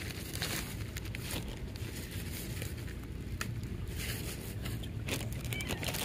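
Domestic cat chewing dry kibble: irregular crunching and crackling over a steady low rumble.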